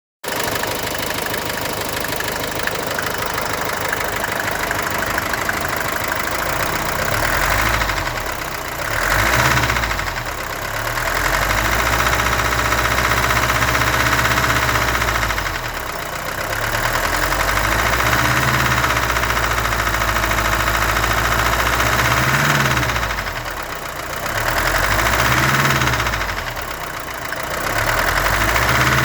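Mercedes-Benz W123 200D's four-cylinder diesel engine idling with a constant knocking, revved up and back down several times. The owner cannot place the knock; he wonders whether it comes from the glow plugs or from something worse, such as the camshaft, crankshaft or rod bearings.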